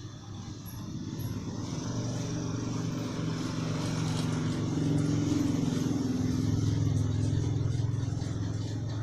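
A motor vehicle's engine passing by, a low hum that grows louder over several seconds and then begins to fade.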